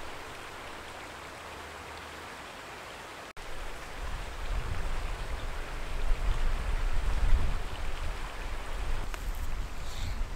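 Outdoor woodland ambience: a steady rushing hiss. After a cut about three seconds in, wind buffets the microphone with an uneven low rumble.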